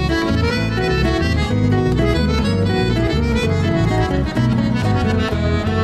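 Instrumental background music, with held chords over a moving bass line.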